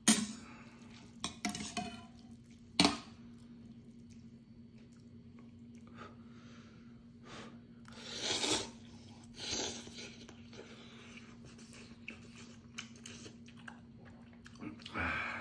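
Metal chopsticks and spoon clinking sharply against a stainless steel pot, then long noisy slurps of ramyeon noodles at about 8 and 9.5 seconds, with chewing in between. A steady low hum runs underneath.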